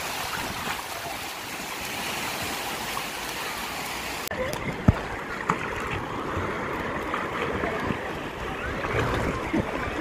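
Surf breaking and washing over the shallows as a steady rush of water. About four seconds in it changes abruptly to softer lapping and splashing around an inflatable boat, with a sharp thump a second later, the loudest moment.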